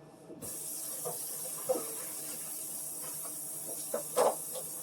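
Kitchen tap turned on about half a second in and running steadily while plastic chopping mats are rinsed under it, with a few light knocks as the mats are handled; the loudest knock comes near the end.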